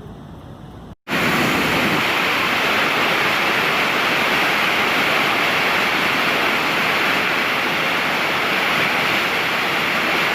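Loud, steady rush of water, as from a waterfall, starting abruptly about a second in after a brief silent gap.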